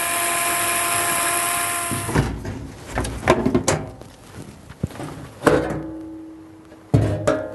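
Power screwdriver with a Torx bit whirring steadily for about two seconds as it undoes a washing machine panel screw. Knocks and clatter follow as the panel is handled, and a second, shorter whir fades out near the end.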